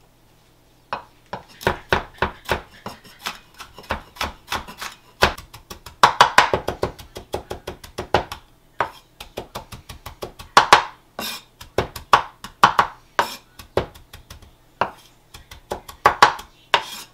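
A wide-bladed knife finely chopping serrano chiles on a wooden cutting board: quick, sharp knocks of the blade on the board, several a second, starting about a second in.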